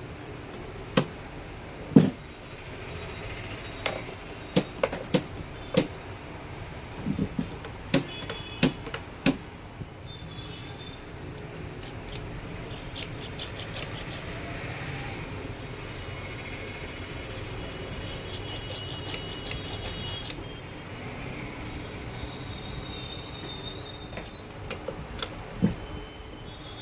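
Metal parts of a sewing machine clinking and knocking as they are handled, followed by the machine running with a steady mechanical clatter and short runs of rapid ticking.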